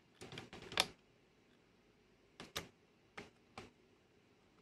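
Small clicks and taps of plastic gears and levers in a VCR tape-transport mechanism being turned and moved by hand: a quick cluster in the first second, then a few single clicks spaced out over the next couple of seconds.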